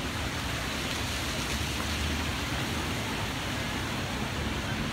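Steady outdoor ambient rush: an even hiss-like noise with no distinct events.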